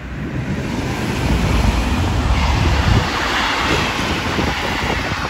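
EMR Regional diesel multiple unit passing close by at speed: a loud rumble and rush of wheels and air that builds quickly and is loudest about one to three seconds in, with wind buffeting the microphone.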